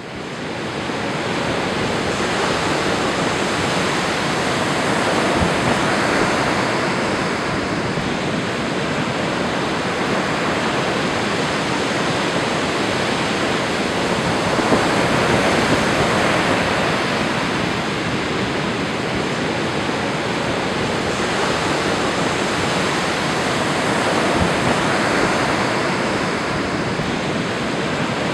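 Lake Superior surf: choppy waves breaking and washing over the rock ledges and sand of the shore, a steady rushing wash that swells and eases every several seconds. It fades in over the first second or two.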